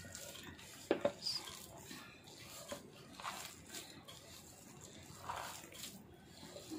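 A hand squeezing and kneading a wet mixture of chopped spinach, chicken strips, flour and egg: faint, irregular squelching, with a couple of sharper clicks about a second in.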